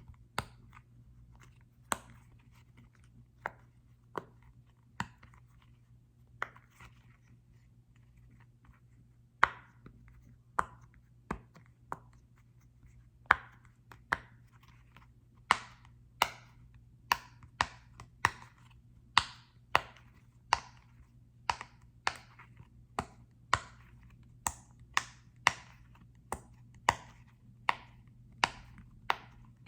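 Sharp taps and clicks on a small soccer-ball-shaped object, each with a short ring, spaced a second or more apart at first and coming more than once a second from about halfway in.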